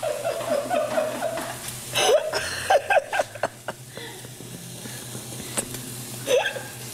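People laughing and chuckling in short bursts, with a steady low hum underneath.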